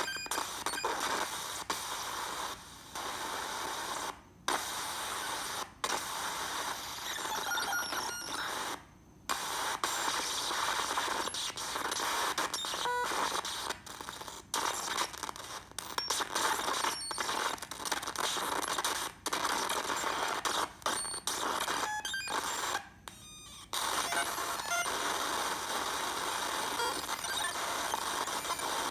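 Sound-effect track of steady static-like noise, abruptly cut off and restarted again and again, with a few faint short tones.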